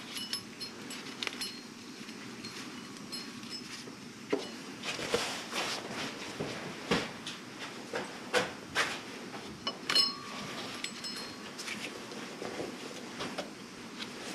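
Irregular clicks, taps and light metallic clinks of parts and tools being handled on a car's power steering pump, a few of the clinks ringing briefly.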